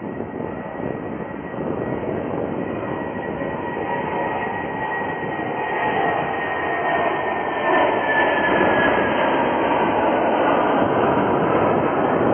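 Boeing 747-400's four Rolls-Royce RB211 turbofan engines at take-off power, climbing away. A dense jet rumble grows louder over the first several seconds, and a thin high whine drops slightly in pitch about eight seconds in as the jet passes.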